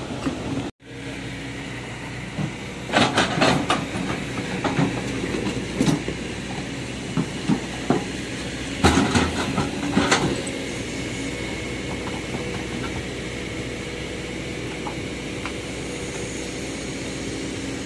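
Kobelco hydraulic excavator's diesel engine running steadily, with the bucket scraping and clanking against earth and stones in two bouts, about three seconds in and again about nine seconds in.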